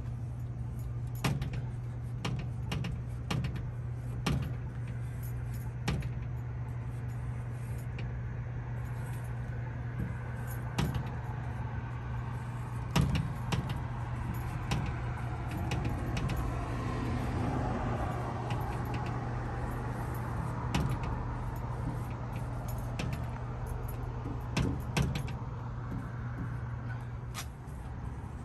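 Urban street ambience: a steady low hum under passing traffic that swells in the middle, with scattered sharp taps and clicks. The hum cuts off near the end.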